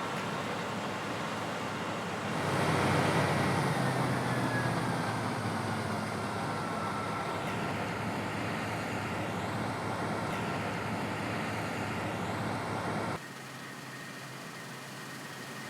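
Claas Lexion 760 combine harvester running steadily at work, a dense machine noise with a faint whine, swelling louder about two and a half seconds in. The level drops abruptly near the end.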